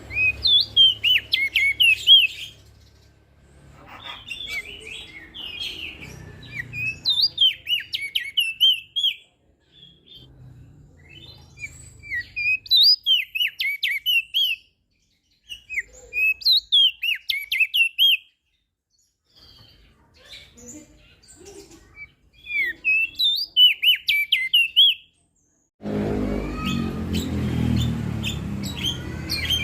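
Crested white-eye (opior jambul) singing: repeated bouts of quick, high twittering notes, each bout a few seconds long with short pauses between them. Near the end a low steady noise comes in under the song.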